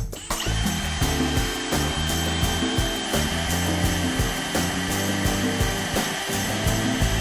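Cordless drill running steadily, its twist bit boring through a small metal plate, with a steady high whine from about a third of a second in. Music plays underneath.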